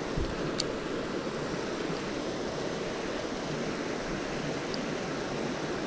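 Shallow, rocky creek running over stones: a steady rush of flowing water, with a single light click about half a second in.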